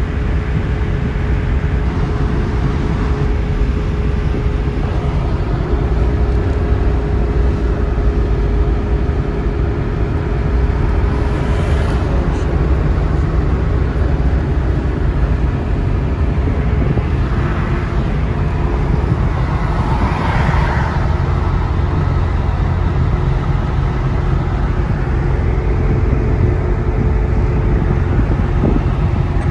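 Steady low rumble of a car travelling at speed on a motorway, tyre and engine noise, with a steady hum underneath and a brief louder swell about twenty seconds in.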